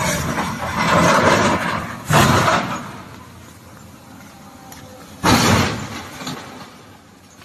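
An excavator crashing down a rocky slope with tumbling rock: a loud rumble, with a sharp crash about two seconds in and another about five seconds in, then dying away.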